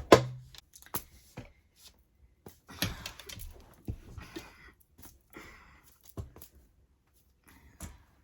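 Scattered small knocks, clicks and brief rustles, like things being handled.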